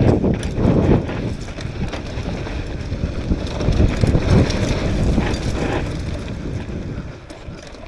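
Mountain bike riding fast down a dirt trail: wind buffeting the microphone over the rattle and knocks of the tyres and bike on the bumpy ground, easing off near the end.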